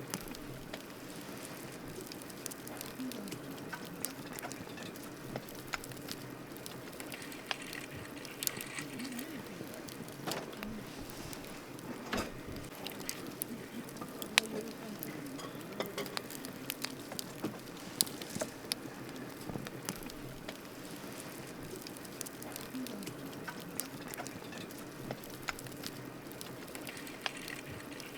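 Wood campfire burning, with frequent irregular sharp pops and snaps over a steady crackling hiss.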